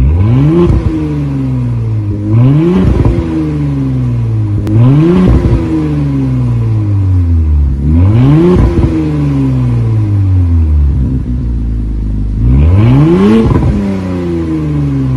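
Porsche Cayenne engine through an ARMYTRIX valved aftermarket exhaust, revved five times; each time the pitch rises quickly and then falls slowly back toward idle.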